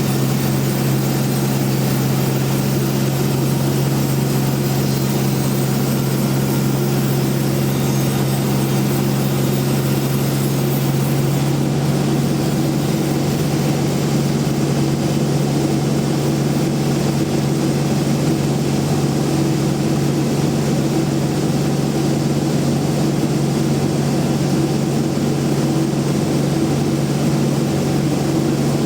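Large bandsaw mill running steadily, its motor giving a loud, constant low hum.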